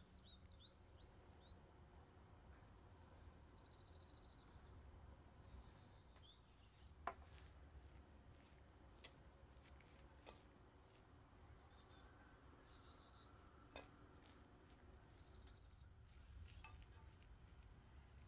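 Near silence with faint birds chirping and trilling high-pitched throughout, and four sharp clicks scattered through the middle of it.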